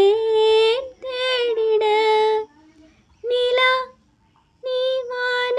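A young woman singing a Tamil song unaccompanied, in long held notes, with brief pauses about two and a half and four seconds in.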